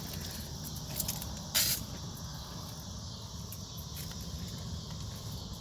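Outdoor woodland ambience: a steady high hiss, such as insects, over a low rumble, with one short, loud rustling burst about a second and a half in.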